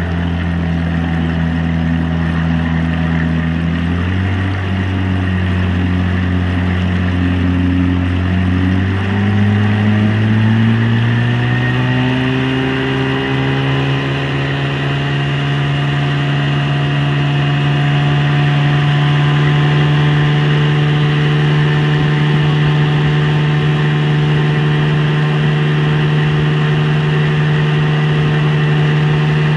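1960 Evinrude 5.5 hp Fisherman two-cylinder two-stroke outboard motor running under way. Its pitch steps up about four seconds in and rises again between about ten and fourteen seconds, then it holds a steady higher speed, with water rushing past. It runs evenly, its spitting and coughing cured by cleaning its dirty ignition points.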